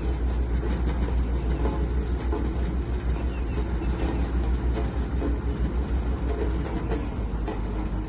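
Ingersoll Rand SD-110D single-drum road roller's diesel engine running steadily as the machine drives slowly forward, a continuous low rumble.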